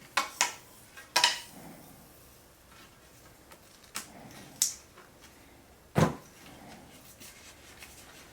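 Clear hockey tape being pulled off its roll, wrapped around a stick's knob and torn: about six short, sharp snaps and clicks, spaced irregularly, the loudest about a second in and near six seconds in.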